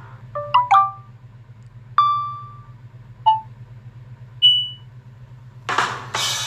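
Samsung Galaxy S21 notification sounds played one after another. A quick run of three chime notes comes first, then a single ringing note about two seconds in, short blips about three and four and a half seconds in, and a noisy burst near the end, all over a faint steady hum.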